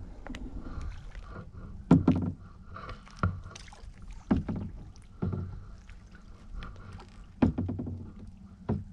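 Canoe being paddled: six sharp knocks of the paddle against the hull, one every one to two seconds, each followed by a brief low rumble of water.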